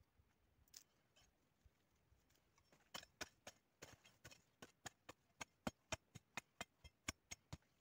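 Hoe blade chopping into dry, clodded soil in quick sharp strokes, about four a second, starting about three seconds in.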